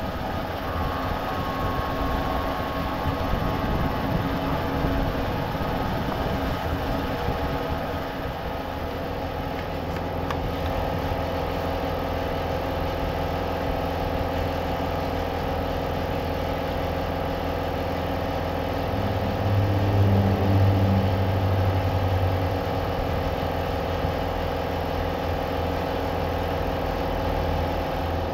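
A motor running steadily with a constant hum, its low hum growing heavier for a few seconds about 19 seconds in.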